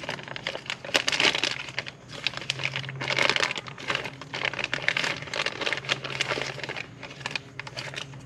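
Clear plastic zip-top bag crinkling and rustling in irregular bursts as it is handled and the part inside is worked out of it.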